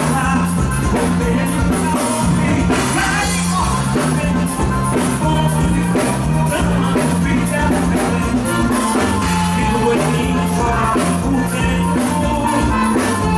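Forró band music with a steady beat and a bass line stepping between notes.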